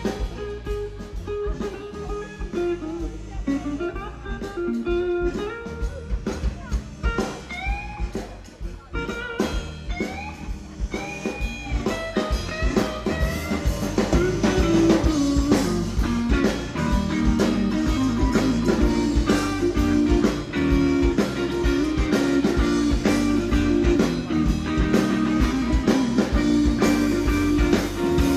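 Instrumental passage of a blues-flavoured zydeco song: a lead guitar line with bent notes over bass and drum kit. The band grows louder about halfway through.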